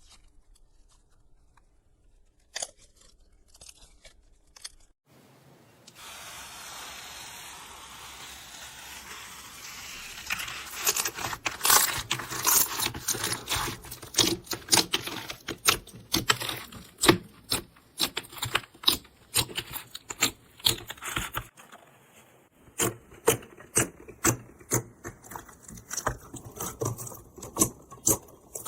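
Crunchy slime being squeezed and poked, crackling and popping in quick sharp clicks, faint and sparse at first and dense and loud from about ten seconds in.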